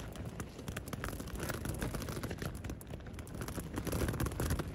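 Nylon tent fabric heard from inside the tent, giving a dense, irregular patter and crinkle.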